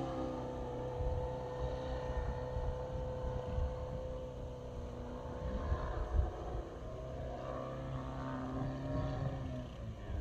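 3W-140B4 four-cylinder boxer two-stroke petrol engine of a large radio-controlled Carbon Cub model plane running in flight: a steady, distant drone whose pitch dips slightly in the first second, then holds.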